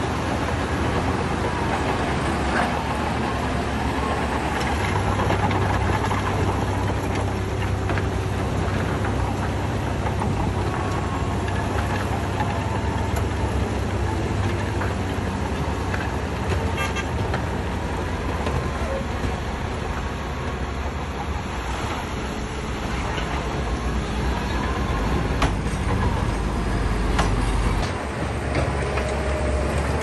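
Diesel engines of heavy earthmoving machinery running under load: a steady low engine sound whose note changes about five seconds in and again near the end.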